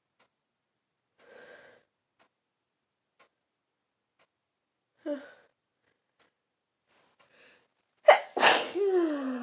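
A person with a head cold sneezes once, loudly, near the end. The sneeze is led in by faint breaths and a short catch of breath, and trails off into a voice falling in pitch.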